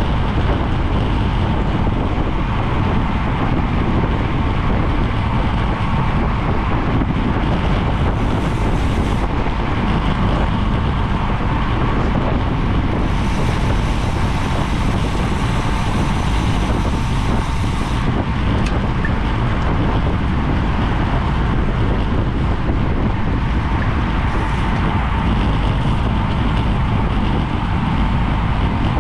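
Steady wind noise buffeting the microphone of a GoPro on a road bike ridden at race speed, with a low rumble of road and tyre noise beneath.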